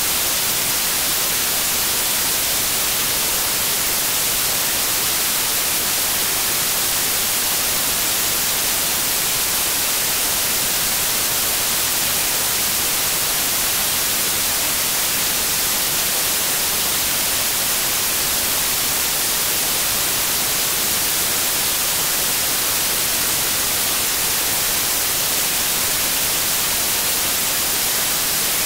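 Steady colored noise used as a sleep sound: an even, unbroken hiss, brightest in the high end, that does not change.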